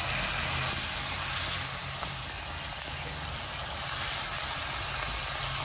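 Diced pineapple with its juice and chopped vegetables sizzling steadily in a hot frying pan as they are stirred in.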